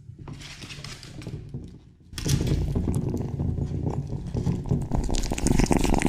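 Kittens eating wet tuna close to the microphone: a dense run of wet chewing and licking clicks that starts about two seconds in, after a quieter stretch.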